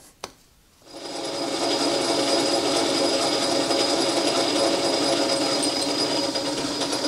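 Metal lathe starting up about a second in and then running steadily in back gear at low speed, with a steady machine whine, while a reamer is fed into a drilled hole in a steel stem turning in the chuck.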